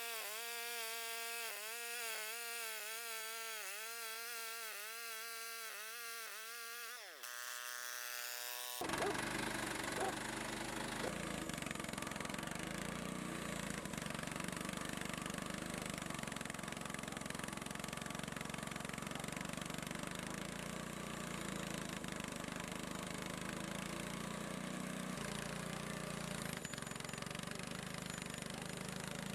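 A pitched buzzing tone that wavers evenly, ending in a falling glide about seven seconds in. From about nine seconds the Frontier portable sawmill's engine runs steadily.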